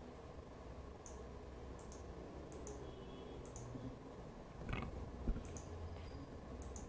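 Faint, irregular high-pitched clicks over a low steady hum, with a soft thump about five seconds in.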